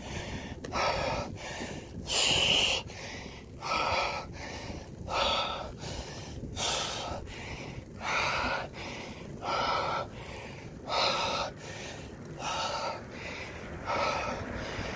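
A cyclist breathing hard while climbing a steep 10% ramp: a loud, heavy breath about every second and a half, the sign of hard effort on the gradient.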